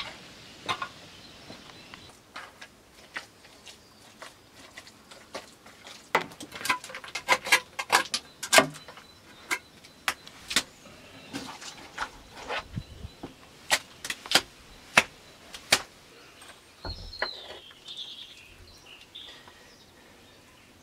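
Irregular series of sharp knocks and taps, densest in the middle, with a bird chirping a few times near the end.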